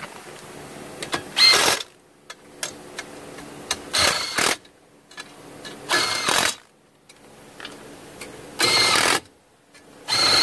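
Makita cordless driver running bolts into a steel under-dash bracket in five short bursts, each about half a second of motor whine, two to three seconds apart. Light clicks of the bit and bracket being handled fall between the bursts.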